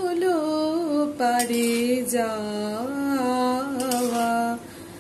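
Background music: a slow Bengali song, one voice holding long notes that slide and waver in pitch. It breaks off briefly near the end.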